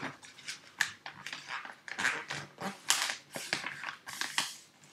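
A sheet of paper being folded and creased by hand: irregular crisp rustles and snaps, several a second.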